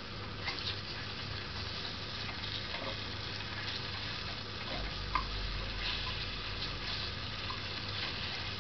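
Whisk stirring melting margarine and onion rings in a small saucepan over a low gas flame: light clicking and scraping against the pan over a soft sizzle.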